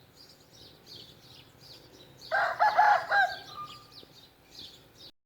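Aseel rooster crowing once, a single crow of about a second in a few broken parts, starting about two seconds in. Small birds chirp faintly in the background, and the sound cuts off abruptly near the end.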